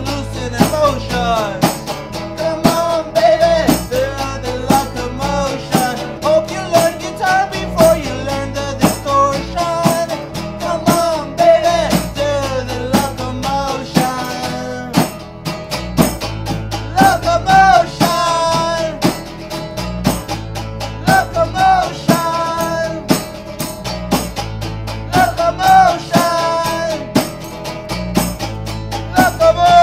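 A small live band playing a song: strummed acoustic guitar, electric bass and a single snare-type drum beating a steady rhythm, with a voice singing the melody over them.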